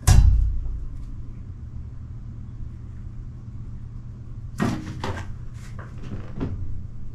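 Cats play-fighting: a heavy thump at the very start as one cat leaps at a bar stool and curtain, then a quick run of knocks, thuds and paw scrabbles about four and a half to six and a half seconds in as they chase across the floor. A steady low hum runs underneath.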